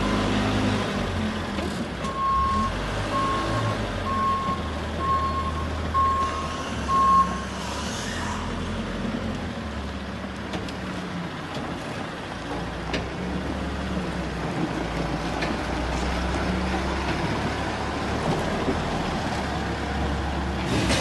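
Diesel engine of a heavy construction machine running. Its reversing alarm beeps about once a second, six times, starting about two seconds in.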